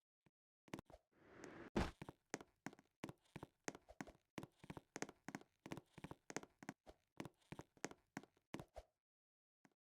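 A faint, even run of light knocks, about three a second, with a short rustling hiss about a second in.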